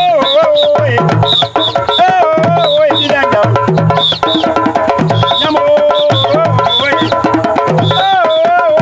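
Hand drums played in a steady rhythm, with a deep bass drum under higher drum strokes, and a voice singing a wavering melody over them.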